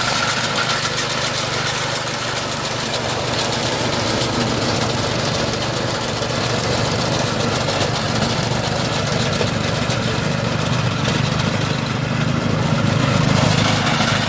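Small air-cooled engine of a walk-behind reaper running steadily under load while the machine cuts through standing ragi.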